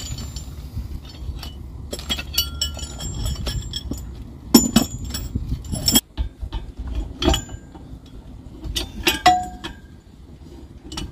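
Metal parts of a propeller puller clinking and clanking as it is fitted onto a boat's propeller: irregular sharp clinks with short ringing, a few louder knocks scattered through.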